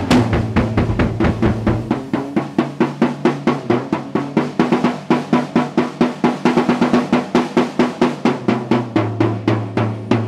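Acoustic drum kit solo. It opens with a dense flurry of snare and tom hits, then from about two seconds in settles into an even run of about five strokes a second.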